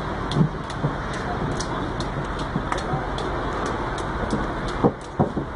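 Fast knife work cutting citrus fruit in half: a quick run of sharp clicks and knocks, a few a second, over a steady background rumble, with two louder thumps near the end.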